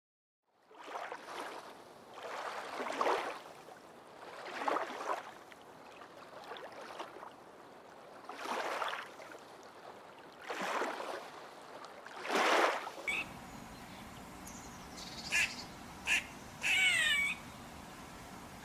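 A series of drawn-out animal cries, roughly every two seconds. About two-thirds of the way through they give way to a steady outdoor background hiss with a few short chirping bird calls.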